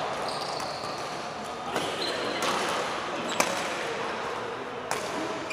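Badminton rackets striking a shuttlecock during a rally: three sharp hits about a second and a half apart, over the hum of a large echoing hall.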